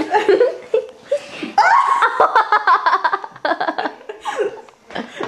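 Laughing and giggling, with quick repeated bursts of laughter in the middle.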